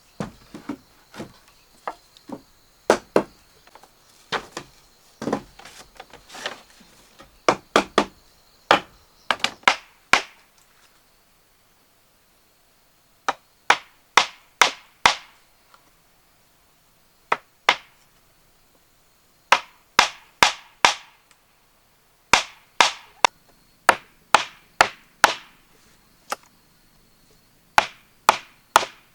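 A hand tool striking wood in sharp, irregular blows, mostly in quick runs of three or four, with a few pauses of several seconds between runs.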